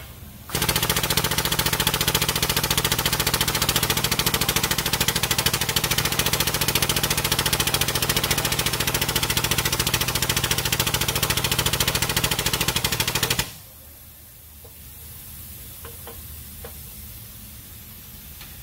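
Air pump of a 20-ton air-hydraulic bottle jack running, a loud, fast, even chatter that drives the shop press ram down to push a wheel bearing into its knuckle. It starts about half a second in and cuts off suddenly about 13 seconds in, leaving only faint handling noises.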